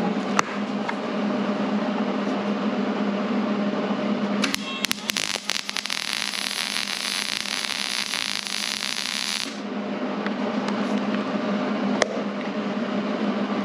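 Hobart Handler 140 MIG welder running a bead with 0.035 wire on thin 20-gauge sheet steel: a steady arc crackle with a buzzing hum, sharper and hissier for about five seconds in the middle. The bead goes in without burning through the sheet, though the machine is not recommended for 0.035 wire on this thickness.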